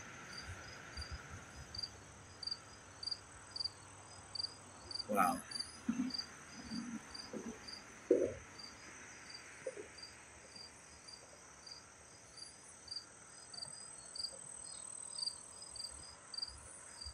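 Crickets chirping steadily, about two to three high chirps a second, over a continuous high insect trill. A few low thuds and rustles come in around the middle.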